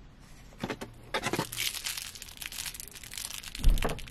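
Clear plastic wrapping crinkling as a small packaged item is handled, with a dull thump near the end.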